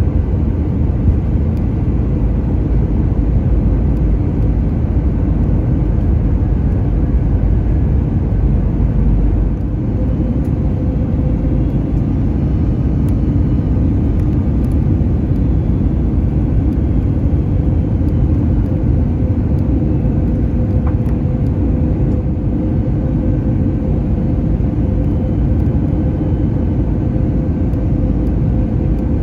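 Steady cabin rumble of an Airbus A321neo airliner, its CFM LEAP-1A engines and airflow heard from a window seat, with a faint steady hum running through it.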